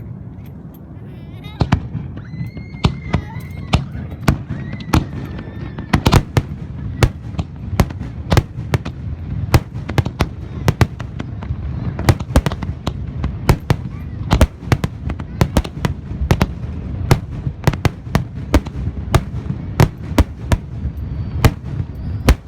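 Aerial fireworks bursting in rapid, uneven succession: dozens of sharp bangs over a continuous low rumble, with a few whistles gliding in pitch in the first few seconds.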